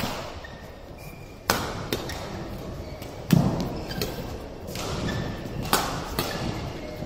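Badminton rackets hitting the shuttlecock back and forth in a fast doubles rally: a sharp smack every second or so, each with an echo, the loudest one a little over three seconds in carrying a heavy thud. Short high squeaks of court shoes come between the hits.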